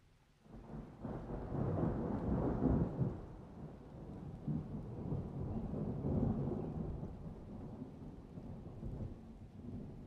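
A long roll of thunder over falling rain: it swells up about half a second in, peaks over the next couple of seconds, then keeps rumbling and slowly fades.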